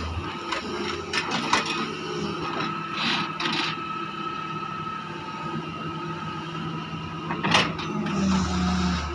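Doosan DX140 wheeled excavator running and digging, its engine and hydraulics giving a steady hum with a whine over it, while the steel bucket clanks and scrapes in the trench several times. Near the end the engine note steps up as it takes the load of the dig.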